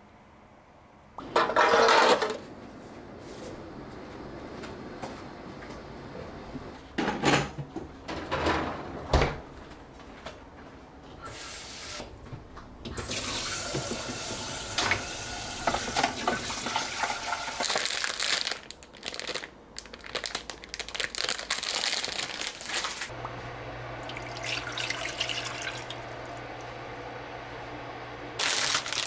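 Kitchen sink work: a tap runs water into a sink for several seconds in the middle, amid knocks and clatter. A steady low hum starts near the end.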